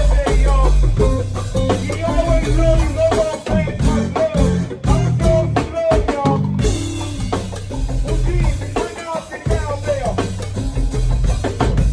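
A band playing music: a drum kit keeping a beat under a bass line, with a bending, wavering melody line on top.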